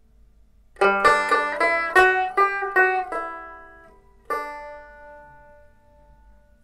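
Closing music on a plucked string instrument: a quick run of about eight picked notes starting just under a second in, then a single chord about halfway through that rings and fades away.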